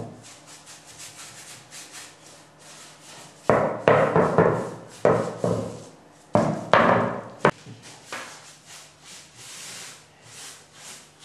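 A bristle brush stroking varnish over bentwood wooden parts in quick scratchy strokes. There are louder spells of rubbing and knocking, about three and a half and six and a half seconds in, as the wooden rings are moved about on the plastic-covered table.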